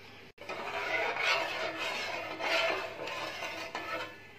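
Steel ladle stirring sugar and water in an aluminium pan, rubbing and scraping across the bottom through sugar that has not yet dissolved.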